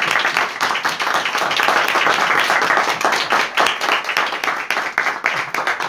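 A few people clapping, a steady round of applause that eases a little in the last couple of seconds.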